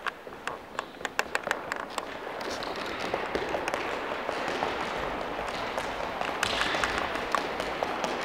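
Running footsteps on a wooden gym floor as children run through a speed ladder, one foot in each rung: a fast patter of quick footfalls over the first two seconds, then a denser patter of steps that runs on under a steady noise.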